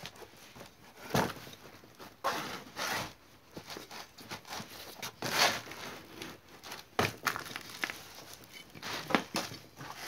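A rubber wheelbarrow tyre being handled and worked off its rim on flattened cardboard: irregular rubbing, scuffing and cardboard crinkling, with sharper knocks about a second in and again about seven seconds in.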